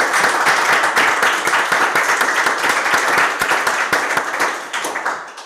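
Applause: dense, steady clapping that fades away near the end.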